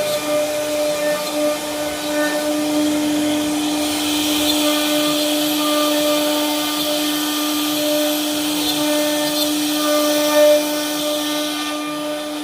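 CNC router spindle running with a steady high whine, while a hissing cutting noise grows louder about four seconds in as the bit carves the mandir design.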